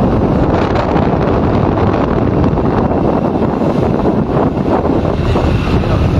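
Steady wind buffeting the microphone of a camera riding on a moving motorcycle, with vehicle and road noise underneath.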